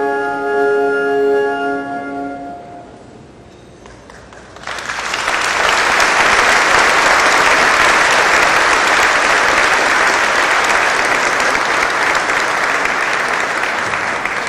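French horn and band hold a final chord that fades out within about three seconds. After a short lull, an audience breaks into loud, steady applause from about four and a half seconds in.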